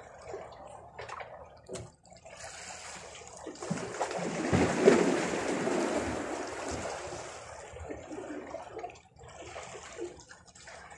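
Sea waves washing against shoreline rocks, one bigger surge swelling about four seconds in and then ebbing away.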